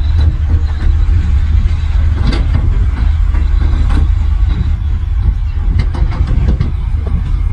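Heavy earthmoving machine's diesel engine running with a steady low rumble, with frequent short clanks and knocks over it.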